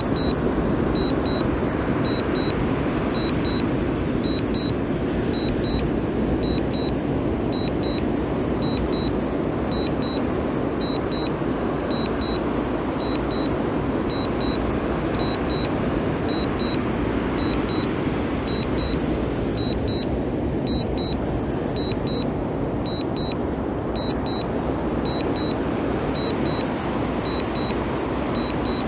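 DJI Mini 2 remote controller beeping in quick pairs about once a second, its Return-to-Home alert, over a steady low rushing noise.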